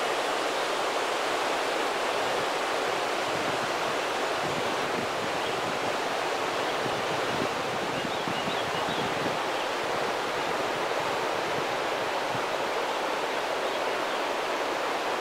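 Steady rushing outdoor noise like running water, even throughout, with a few faint high chirps about eight seconds in.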